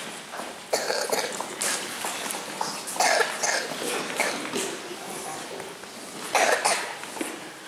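Several short coughs, about a second in, around three seconds in and again near the end, over low murmuring voices.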